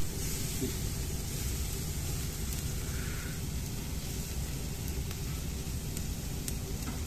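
Pork belly strips sizzling on a wire grill grate over an open fire: a steady hiss over a low rumble, with a few faint clicks of metal tongs.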